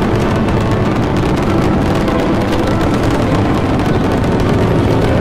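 Rocket engines firing: a steady, loud rumble with hiss, unchanging throughout.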